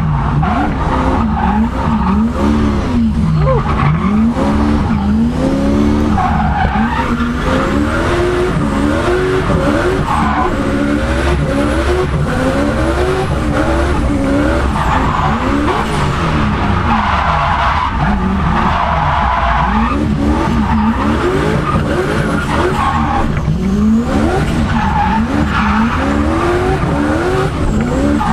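Turbocharged Lexus 1UZ-FE V8 in a Nissan 200SX drift car, revving up and down again and again through a drift run. Tyres squealing and skidding in repeated bouts.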